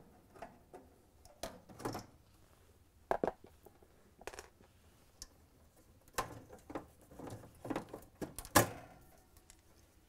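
Light clicks and scrapes of a Phillips screwdriver working screws out, then louder knocks and scraping as the vent grill is pulled off in the last few seconds.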